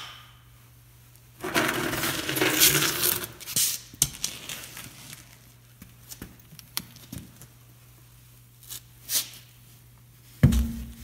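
Steel lug nuts clinking and clattering as they are handled, with scattered sharp clicks. A heavy thump near the end as the aluminum wheel is hung onto the hub studs.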